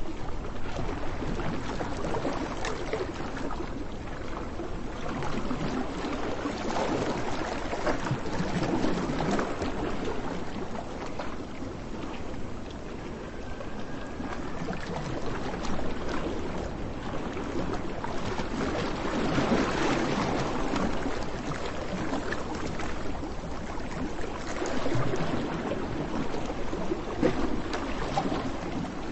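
Waves washing onto a sandy beach: a steady rush of surf that swells and eases every few seconds.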